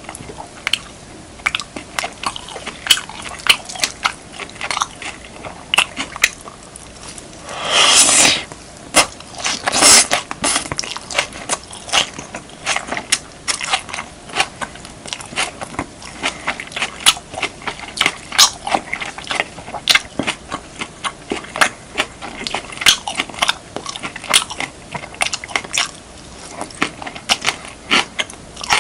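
Close-miked eating of beef, kimchi and rice: a steady stream of quick wet chewing clicks and lip smacks. A louder, longer burst comes about eight seconds in, and a sharp loud one near ten seconds.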